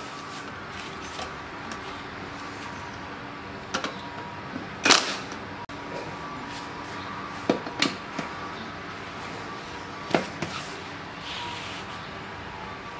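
Scattered sharp knocks and clunks of plastic and metal as a motorcycle's hinged seat is fitted and set down. There are about six, the loudest about five seconds in.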